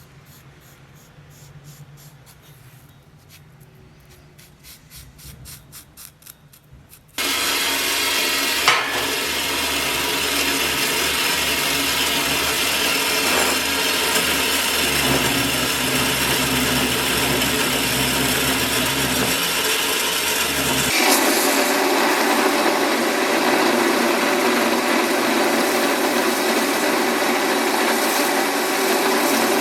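Faint rapid strokes for the first several seconds, then a power tool switches on abruptly and runs steadily while working the sword guard; its sound changes partway through, losing its low hum and taking on a harsher, higher grinding tone.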